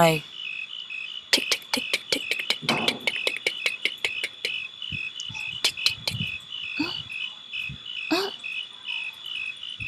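Crickets chirping in a steady, evenly pulsing trill. A quick run of sharp clicks sounds over them between about one and six seconds in.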